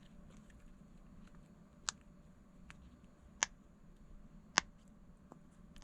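Mini push-pop fidget toy bubbles being pressed in, each giving a short, sharp pop: three clear pops about a second apart, with a few fainter clicks between.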